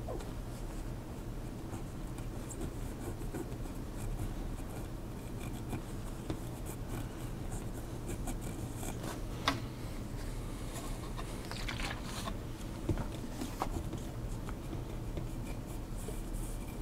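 Terry towel rubbing and scrubbing on a graphics card's GPU die, wiping off old thermal paste, over a steady low hum. A sharp click a little past halfway and a couple of lighter knocks soon after.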